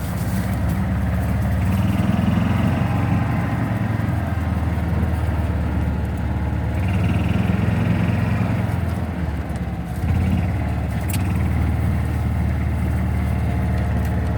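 Vehicle engine running steadily as it is driven along, swelling twice as it picks up a little speed.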